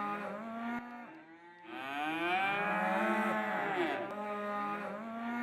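Cattle mooing: long, drawn-out calls one after another, with short pauses between them.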